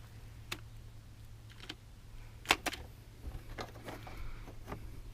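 Scattered light clicks and taps of a plastic bumper piece and zip ties being handled, with a sharper double click about two and a half seconds in, over a low steady hum.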